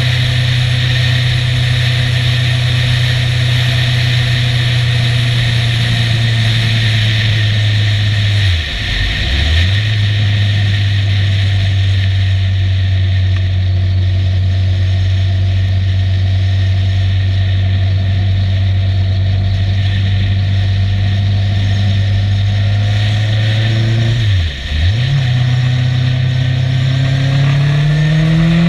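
Motorcycle engine at steady cruising revs under wind and road noise, recorded from the bike. The engine note drops briefly twice, about a third of the way in and again near the end, and near the end it climbs as the bike accelerates.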